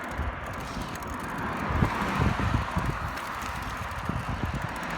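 Wind buffeting the microphone while riding a bicycle: irregular low rumbling, with a few louder gusts about two seconds in.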